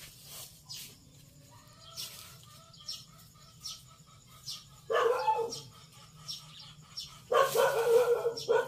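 A dog barking: faint calls a couple of seconds in, then a loud bark about five seconds in and a longer run of loud barking near the end.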